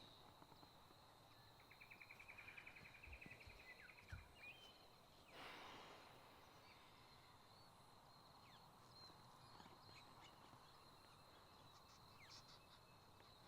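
Near silence: room tone with a faint steady high whine, a brief rapid trill about two seconds in, two soft low thumps, and a short rustle a little after the middle.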